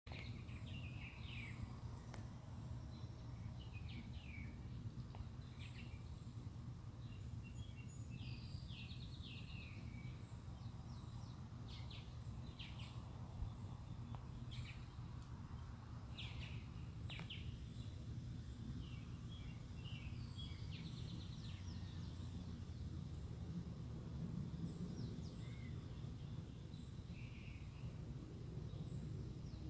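Birds chirping, many short calls scattered throughout, over a steady low outdoor rumble.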